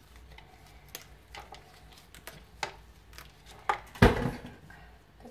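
Cooked lobster shell being broken apart by gloved hands on a plastic cutting board: a string of small cracks and clicks as the legs are snapped off, with one loud knock about four seconds in.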